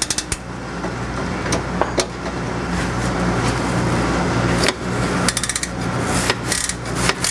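Hand ratchet on a long extension working an exhaust mid-pipe bolt under a car: scattered sharp metal clicks and clanks, some in quick runs near the end, over a steady low hum.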